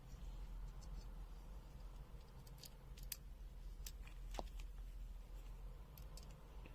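Faint, scattered light clicks and taps of multimeter test probes and small LEDs being handled, over a low steady hum.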